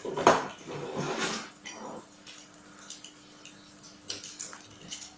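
A plastic pitcher's snap-on lid pressed shut with a sharp knock and some plastic rattling, then a few small clicks as the plastic cap of a juice bottle is twisted open near the end.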